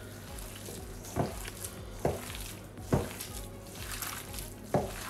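Hands squeezing and kneading wet, seasoned raw beef mince in a stainless steel bowl, with a soft squelching. Four louder squelches stand out, roughly a second apart.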